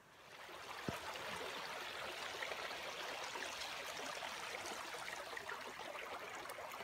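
Small mountain stream running steadily over rocks and moss, fading in over the first half second, with one short knock about a second in.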